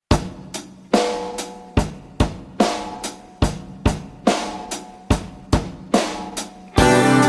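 A song opening on a drum kit alone: bass drum, snare and hi-hat in a steady beat. Near the end the rest of the band comes in with bass and sustained chords.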